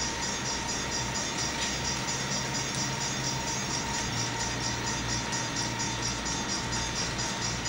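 Model trains running on a layout: a steady hum and whine from the locomotives' small electric motors, with light rattling of the wheels and cars on the track.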